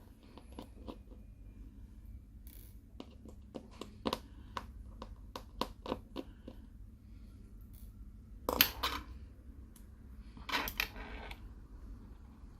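Small hand tools clicking and tapping against a smartphone's internal parts while connectors are unclipped and components pried out: many light, sharp clicks, with two louder half-second scrapes about two-thirds of the way through.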